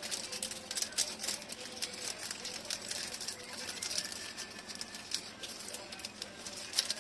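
Black florist's wrapping paper crinkling and rustling as it is handled, folded and pressed around a bouquet: a rapid, irregular run of small crackles.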